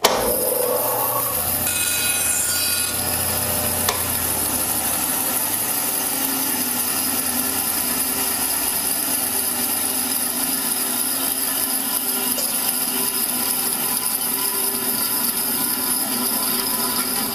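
Laguna 1412 bandsaw starting up, its whine rising over the first few seconds as it comes up to speed, then running steadily while its blade cuts through a melamine-faced particleboard board fed along the fence: a test cut.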